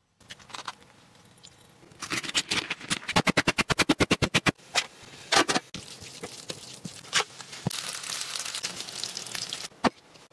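Food-preparation sounds: a fast, even run of sharp knocks, then sizzling in a frying pan as spaghetti is stirred in an electric griddle pan.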